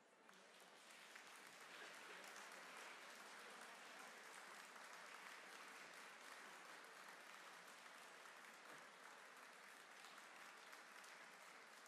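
Faint, steady hiss of small surf breaking and washing up a sand beach.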